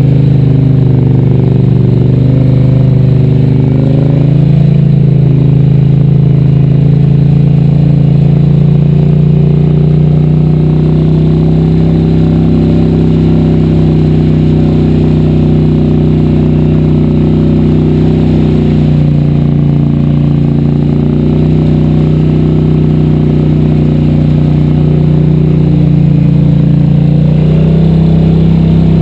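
850 H.O. ATV engine running steadily at a fairly even pitch, with small rises and dips in revs, as the quad rides through a shallow rocky river with water splashing around its wheels.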